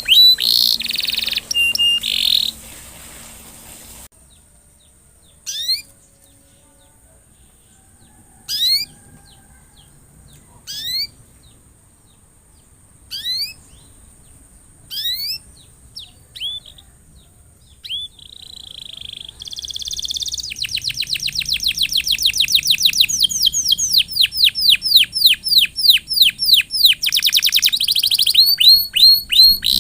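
Domestic canary singing: a burst of loud song, then single high down-slurred chirps every second or two, building about two-thirds of the way through into a fast trill of rapidly repeated falling notes.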